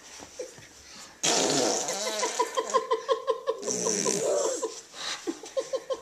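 A loud, fluttering, fart-like noise made on cue, starting suddenly about a second in and lasting a few seconds, followed by a weaker stretch of the same fluttering near the end.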